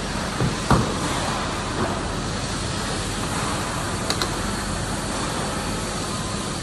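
A steady mechanical hum from a 1998 Mercedes-Benz AMG SL60 as its power side windows lower, with a sharp click a little under a second in.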